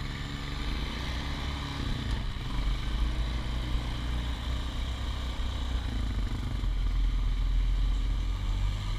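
Honda Foreman 450 ATV's engine running under way on a dirt trail, its note climbing at the start and then holding fairly steady.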